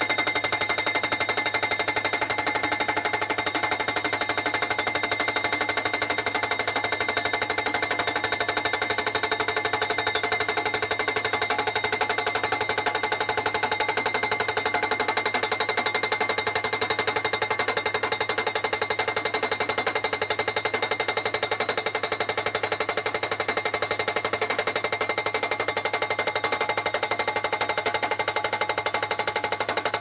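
Vermeer PD10 pile driver's hydraulic hammer pounding a steel post into the ground, with rapid, steady blows and a metallic ringing over them.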